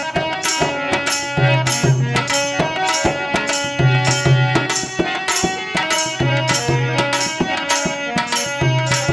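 Instrumental break in a Rajasthani Fagan (Holi) folk song: drums keep a steady beat under a held melody line, with a deeper drum stroke falling in pairs every couple of seconds.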